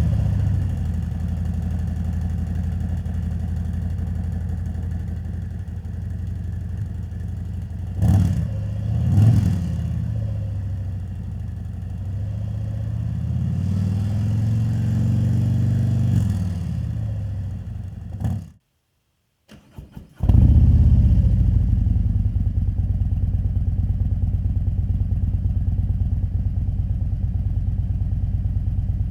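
Harley-Davidson Road Glide Limited V-twin idling through freshly fitted Khrome Werks 4-inch perforated slip-on mufflers. It gives two short throttle blips about eight and nine seconds in and a slower rev around fifteen seconds. Near eighteen seconds the sound drops out for about two seconds, then the engine is idling again.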